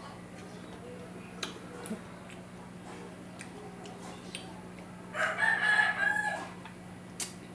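A rooster crowing once, about five seconds in, in one long call of about a second and a half, over a low steady hum. A few sharp crunchy clicks of chewing come before and after it.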